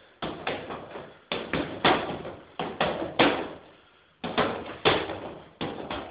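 Rapid strikes landing on a padded target, about fifteen sharp smacks in quick flurries with a short pause a little past the middle, each dying away quickly.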